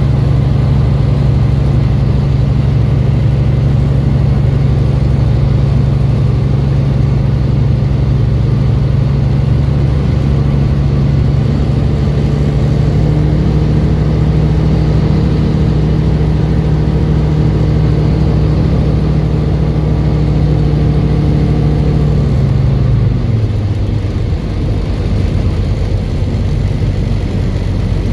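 Tecnam P96 light aircraft's piston engine and propeller running steadily on approach, then throttled back about three-quarters of the way through, the hum dropping in pitch as power comes off before touchdown.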